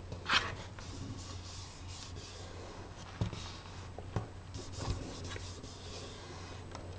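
Faint rubbing and rustling of cardstock, with a short scrape near the start and a few light taps, as a glued paper piece is handled and pressed down by hand.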